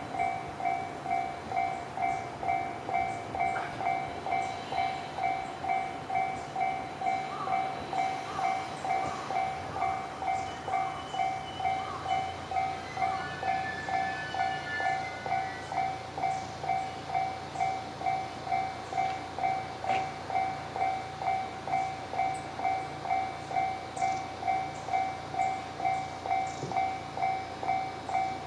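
Japanese railway level crossing alarm ringing its electronic bell, a steady ding about twice a second. A train's low rumble builds under it from about ten seconds in.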